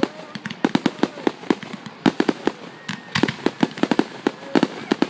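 Aerial fireworks bursting: a rapid, irregular run of sharp bangs and crackling pops, several a second without a break.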